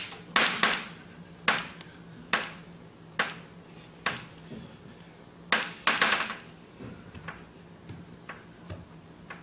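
Marker writing on a whiteboard: a run of short squeaky scratching strokes, about eight clear ones in the first six seconds, then only faint taps and scratches.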